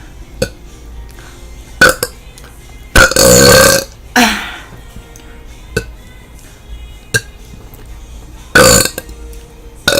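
A woman burping deliberately: a long, loud burp of about a second about three seconds in, then a shorter one falling in pitch, and another loud burp near the end, with a few brief sharp sounds in between.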